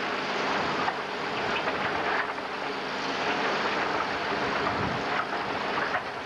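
Vince Hagan horizontal concrete mixer running: a steady, dense rushing noise over a low, even hum.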